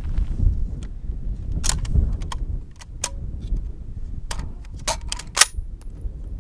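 Desert Tech MDRX bullpup rifle being handled and loaded: a series of sharp metallic clicks and clacks, clustering and loudest toward the end, over a steady low wind rumble on the microphone.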